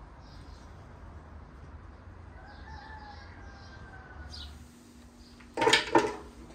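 A rooster crowing faintly, one long call with a slightly falling pitch about two seconds in, with faint bird chirps around it. A short, louder burst follows near the end.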